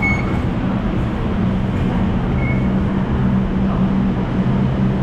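Busy street traffic, with a large vehicle's engine running close by as a steady low drone, and two short high beeps.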